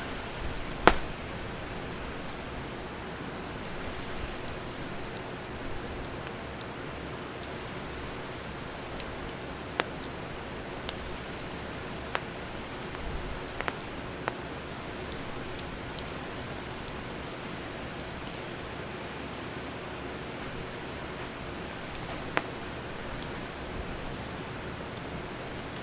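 Wood fire burning, with a steady hiss and scattered sharp crackles and pops; the loudest pop comes about a second in.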